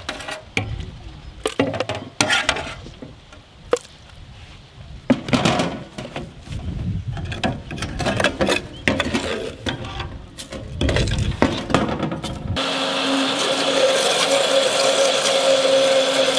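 A steel ladle and rambutan flesh knock and clatter against a metal bowl and a blender jar in irregular strokes. About twelve seconds in, an electric blender switches on and runs with a steady whir and hum, blending the fruit.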